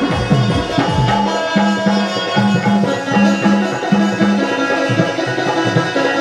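Bundeli Rai folk dance music played live and loud through a PA: hand drums beat a quick, driving rhythm under held instrumental tones.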